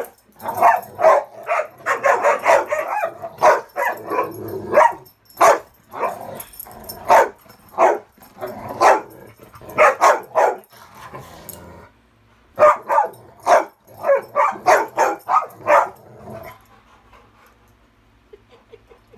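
Dogs barking in play, among them a Rottweiler's high-toned play bark. A dense string of quick barks, then more spaced barks, a short pause past the middle, another quick run, and the barking stops about three-quarters of the way through.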